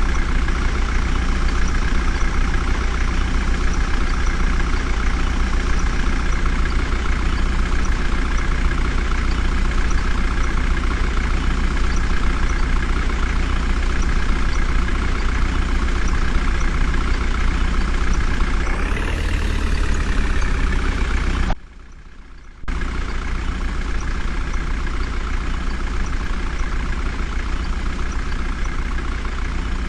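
Heavy diesel engine running steadily, revving up briefly about two-thirds of the way through. Just after, the sound drops away sharply for about a second, then the engine carries on.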